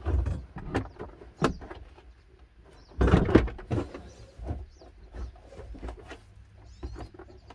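Hard plastic HVAC heater box knocking, clicking and scraping against the dash frame and firewall as it is worked into line. The loudest stretch is a scraping rustle about three seconds in.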